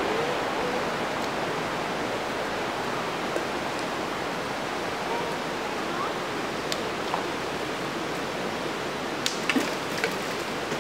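Creek water rushing steadily over rocks, with a few sharp clacks and splashes of thrown stones hitting the water: one about seven seconds in and several close together near the end.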